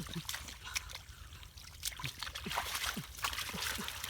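Shallow water sloshing and trickling, with many irregular small splashes and sharp clicks.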